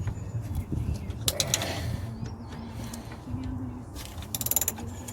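Ratchet spanner clicking while a bolt is worked on the front hub, in short bursts of ticks with a quick even run of clicks near the end.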